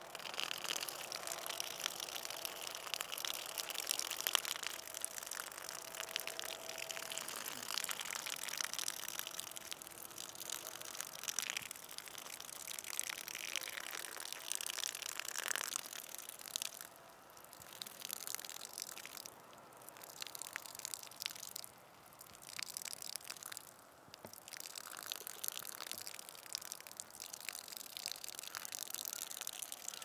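A person urinating outdoors: a splashing stream of urine that starts abruptly, breaks off briefly several times partway through, then runs on steadily.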